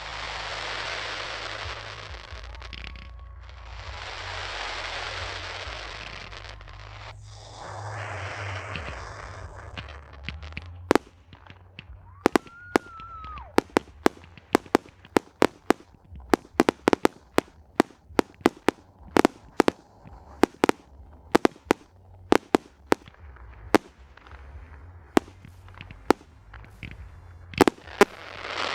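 Fireworks going off: three long swells of hissing noise for the first ten seconds or so, then a rapid string of sharp bangs, one or two a second, with a short whistle about twelve seconds in.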